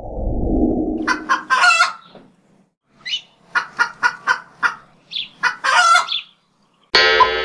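Animated outro sound effects: a low whoosh that swells and fades over the first two seconds, then runs of short, sharp calls at about four a second, and a bright pitched sound that starts near the end.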